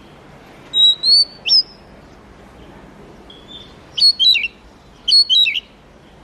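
Oriental magpie-robin singing: three short bursts of clear, high whistled notes, each of two or three notes with quick falling slurs, about a second and a half apart.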